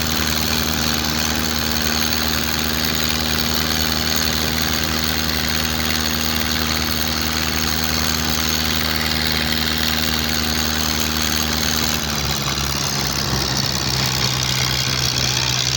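Wooden fishing boat's engine running steadily under a steady hiss; about twelve seconds in, its note drops to a lower pitch as the engine slows.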